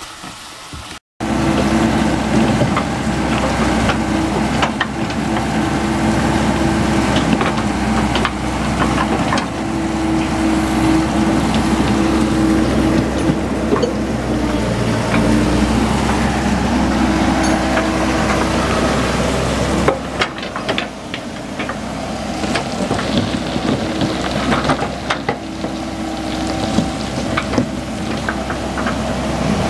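Komatsu hydraulic excavator's diesel engine running steadily. In the last third, rattling clatter of rock and dirt comes through as its bucket pushes backfill beside the tanks.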